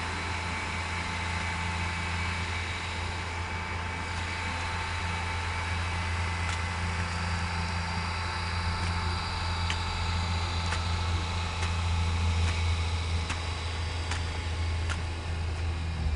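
Off-road 4x4's engine running steadily at a low, even speed. Faint sharp clicks come about once a second from about six seconds in.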